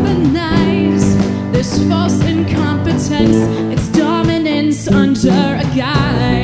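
Small live band playing a song: a woman singing lead with a wavering vibrato over electric guitar and drums.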